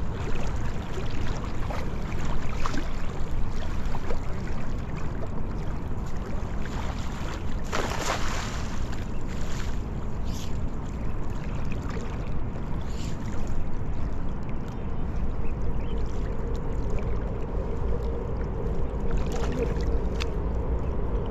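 A cast net landing on shallow river water: a brief splashing hiss about eight seconds in, over a steady low rumble, followed by small water sounds as the net is drawn back in.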